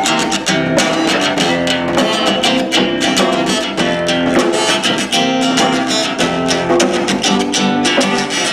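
Guitar strummed in a steady rhythm, playing a song's instrumental introduction with no voice yet.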